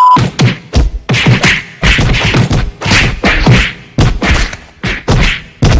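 A quick run of whacks and thuds, two to three blows a second, in a beating; a short beep sounds at the very start.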